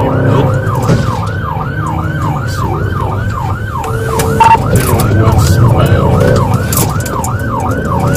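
Patrol car siren on a fast yelp, rising and falling about three times a second, over the car's engine and road noise during a pursuit. A short beep sounds about halfway through.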